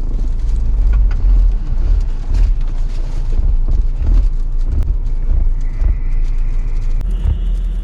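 Strong wind buffeting the microphone: a loud, uneven low rumble that rises and falls in gusts.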